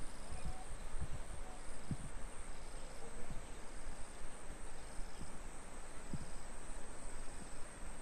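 Insects in the fields: a steady high-pitched drone with a short chirp repeating about once a second, over an even outdoor hiss and occasional low bumps.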